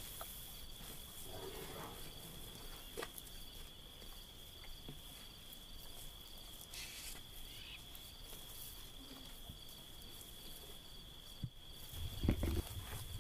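Insects chirring: a steady high-pitched trill with a faint pulsing note above it. About twelve seconds in, a louder low rumbling sets in.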